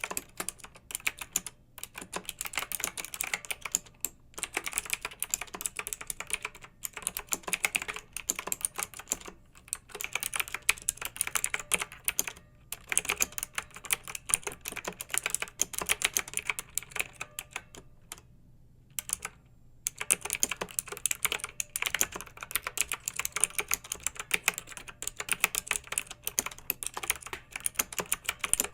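Clicky mechanical keyboard being typed on quickly and continuously, a steady run of keystrokes broken by short pauses, with one longer pause of about two seconds past the middle.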